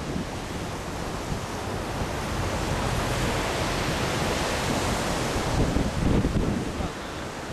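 Rough sea surf breaking on the shore, a steady rushing wash, with strong wind buffeting the microphone in a low rumble. The noise swells louder for a moment about six seconds in.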